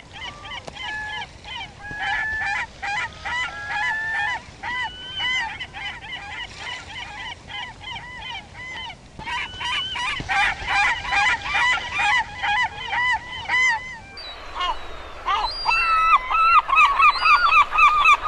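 A flock of seagulls calling over one another: many short, repeated, squealing calls. The calls turn louder and closer about fourteen seconds in.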